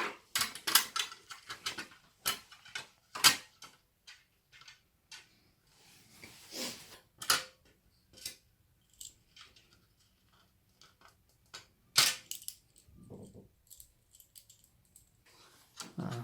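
Irregular clicks, taps and light clatter of small hard parts being handled, a rapid run of them in the first few seconds and a sharp knock about twelve seconds in.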